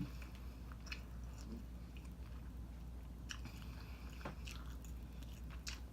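A person chewing food close to the microphone, faint, with a few soft mouth clicks scattered through.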